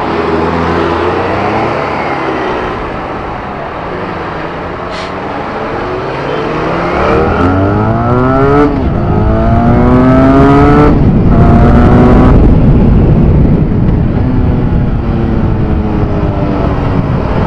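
Motorcycle engine accelerating hard, its pitch climbing and dropping back with each upshift three times, over heavy wind and road rush. It settles to a steadier pitch for the last few seconds.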